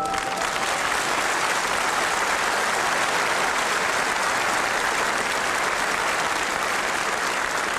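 Arena crowd applauding steadily at the end of a boxing round. The ring of the round bell fades out in the first moment.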